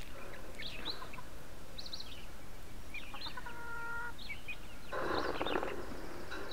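Young chickens peeping in short high chirps, with one longer held call about halfway. Near the end comes a loud burst of wing flapping as a young chicken flies off the top of the wire cage.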